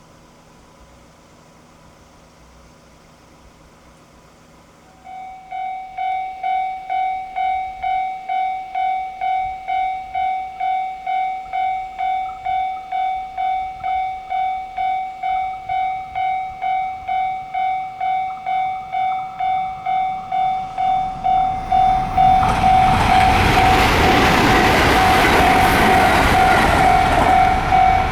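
A Japanese level-crossing alarm starts about five seconds in, an electronic bell ringing evenly about twice a second. Over the last six seconds a train passes over the crossing, and the loud rush and rumble of its wheels on the rails rise over the still-ringing bell.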